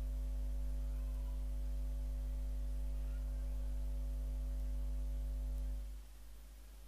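Steady electrical hum with a ladder of overtones, dropping sharply in level about six seconds in.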